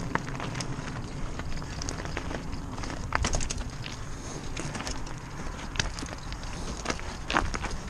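Mountain bike riding down a rocky, loose-gravel trail: a steady rumble of tyres over stones, with scattered sharp clicks and knocks of stones and rattling bike parts, the loudest a little after three seconds in and again near the end.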